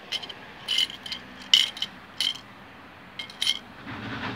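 A string of light, sharp clinks from small hard objects knocking together, about eight in irregular succession, each with a brief ringing tone.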